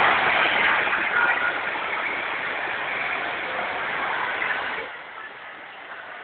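Steady noisy din of an indoor water park pool hall, which drops suddenly to a lower level about five seconds in.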